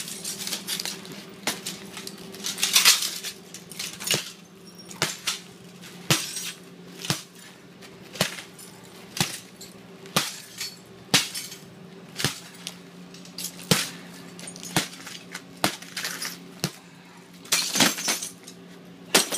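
A hammer strikes a cracked laminated impact-rated window pane about once a second, each blow a sharp crack with a tinkle of glass, and a louder crunching flurry about three seconds in and again near the end. The shattered glass stays held together in the frame rather than giving way.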